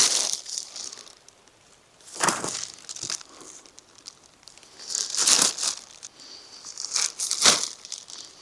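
Crisp crackling rustles, four short ones spaced a second or more apart, with quiet between them.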